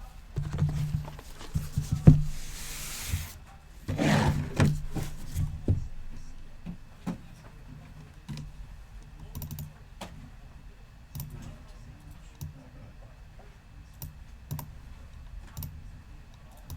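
Handling noises on a desk: scattered clicks and light knocks, with a cluster of louder thuds in the first few seconds and a short hiss about two seconds in.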